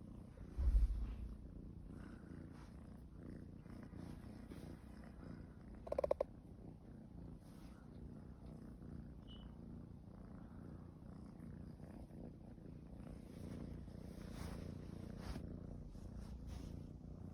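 Domestic cat purring steadily. A low thump about a second in and a brief sharper sound about six seconds in stand out over the purr.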